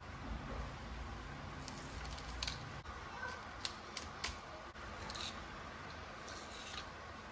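Fillet knife slicing a fish fillet off along the backbone and ribs: a series of short scrapes and sharp clicks as the blade passes over bone, the loudest about three and a half seconds in.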